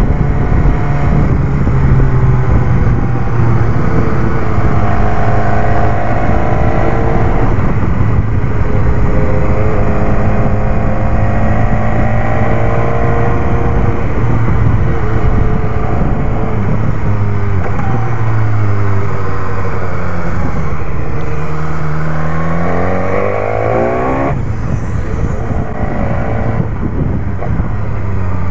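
BMW S1000R's inline-four engine under way, its revs repeatedly rising and falling as the bike pulls through the gears. Near the end one long climb in revs cuts off sharply, and the engine then runs steadier at lower revs.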